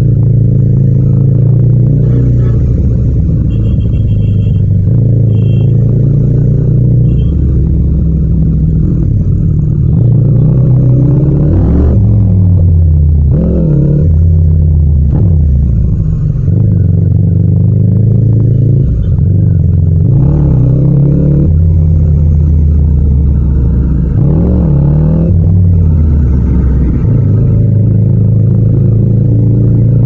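Yamaha MT-07's parallel-twin engine running in low gear at city-traffic speed, its pitch rising and falling several times as the throttle is opened and closed and gears are changed.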